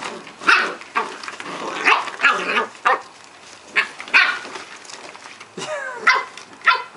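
Cardigan Welsh Corgi puppies yapping while play fighting: about ten short, high-pitched barks and yips in quick, irregular bursts.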